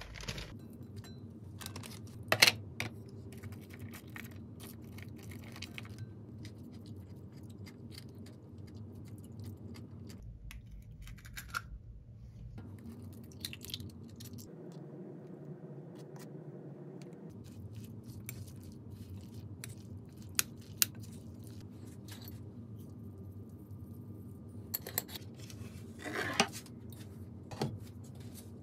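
Quiet kitchen prep sounds over a low room hum: ingredients such as kimchi, mushrooms and eggs going into a ceramic bowl, with scattered light clicks and a few sharper knocks.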